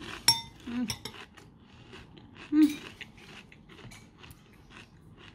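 A spoon clinking against a cereal bowl, one ringing clink about a third of a second in, amid close crunchy chewing of cereal flakes.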